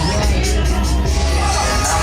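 Loud background music with a heavy bass line and some singing.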